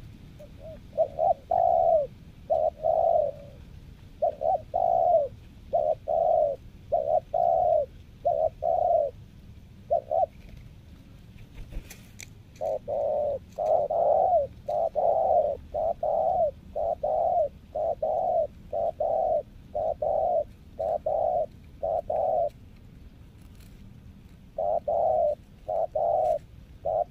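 Spotted dove cooing: a long run of short coo notes, a little over one a second, in phrases broken by two pauses of about two seconds.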